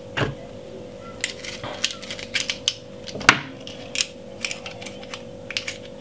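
Metal garlic press clicking and knocking against a glass bowl as crushed garlic is pressed and tapped out onto raw chicken. It is a run of light, irregular clinks and taps, with one sharper knock a little past halfway, over a steady low hum.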